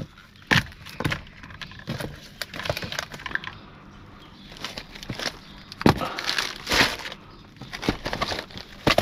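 Packaged products being handled and set down: scattered knocks and clicks with brief rustles of plastic and cardboard packaging, loudest about six to seven seconds in.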